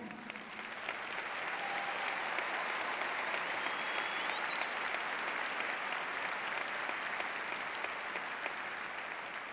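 Large audience applauding, swelling over the first few seconds and slowly fading toward the end, with a brief whistle about four seconds in.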